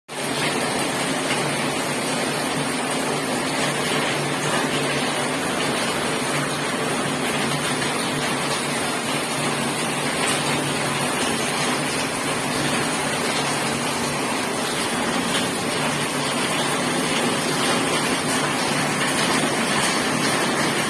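Heavy rain pouring down without let-up: a steady, even hiss of downpour.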